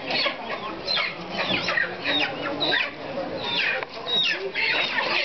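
A crowded flock of chickens calling over one another: many short, overlapping calls with no pause.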